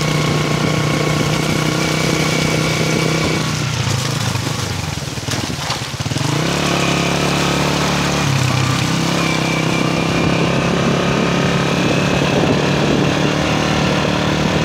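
Motorcycle engine running while riding. About four seconds in the engine note briefly drops away, then it picks up again about two seconds later with a changed pitch.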